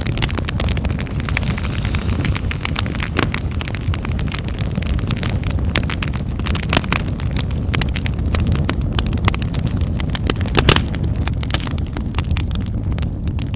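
Wood fire in a fireplace crackling, with irregular sharp pops and snaps over a steady low rumble; one of the louder pops comes about eleven seconds in.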